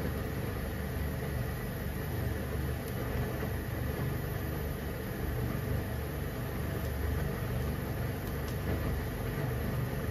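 Water boiling in a frying pan with pieces of chicken in it: a steady low bubbling rumble, with a few faint clicks.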